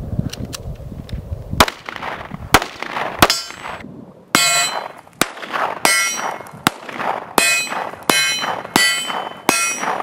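Gunshots in quick succession at a steel target, most followed by the ringing clang of the steel being hit. In the second half the hits come about every three-quarters of a second.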